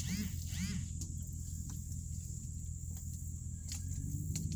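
Dodge Ram pickup's engine running at low speed, a steady low rumble heard from inside the cab as the truck drives over rough, grassy ground, picking up slightly near the end. Two short squeaky chirps come near the start, and a few light ticks follow.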